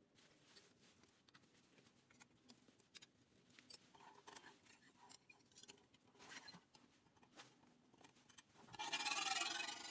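Faint, scattered light clicks and taps of small handwork, then near the end a loud, steady abrasive rubbing starts suddenly, like sanding or filing.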